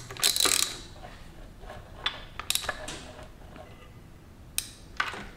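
A tool on the crankshaft bolt of a 2022 Honda Grom's engine turning it over by hand toward top dead center, to check the cam timing. A brief rasp at the start, then a few scattered metallic clicks.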